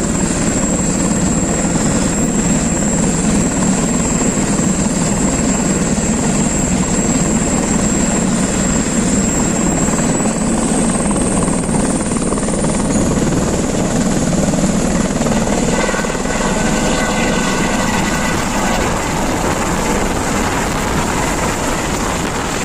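Turbine helicopter running with its rotor turning: steady rotor and engine noise under a high turbine whine that rises in pitch about ten to thirteen seconds in as it powers up, then lifting off, the sound easing slightly near the end.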